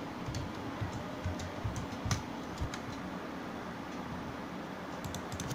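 Irregular clicks of a computer keyboard and mouse as numbers are typed into settings fields, over a steady faint hiss.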